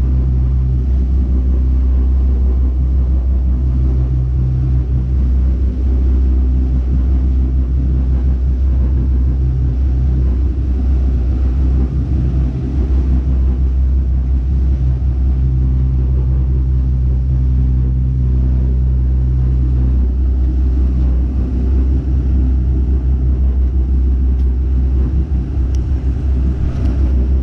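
Fishing boat's engines running under way, a loud, steady low drone with a higher hum in it that fades in and out every few seconds, over the rush of water churning in the wake.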